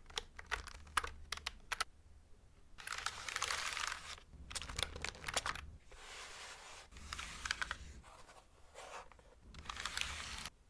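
Mechanical keyboard keys clicking in quick runs of taps, alternating with stretches of a hissy rubbing sound of hands brushing.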